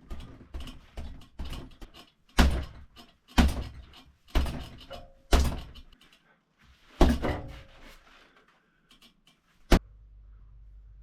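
Knocks and thumps picked up by a GoPro 11 on a running person: a quick run of light knocks for the first two seconds, then heavier thumps about once a second. A single sharp click comes near the end, followed by a low steady hum.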